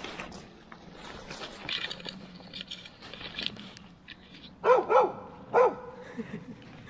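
A hound on a tracking leash barks three times about two-thirds of the way in, the first two close together. Before that come the rustle and crunch of footsteps through dry fallen leaves.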